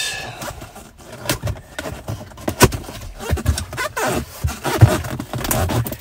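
A cardboard box being opened and handled: the lid and flaps scraping and rustling, with irregular knocks and taps.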